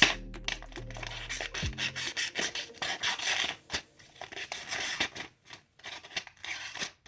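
Out-the-front switchblade blade slicing through a sheet of slack paper: a string of rough, raspy scraping and tearing strokes that thin out near the end, the unstretched paper giving a ragged cut. Background music with steady tones fades out in the first two seconds.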